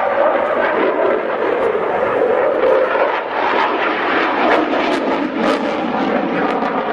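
Saab JAS 39 Gripen fighter's single jet engine, a loud, continuous roar as the jet manoeuvres overhead, turning rougher with sharp crackling from about three seconds in.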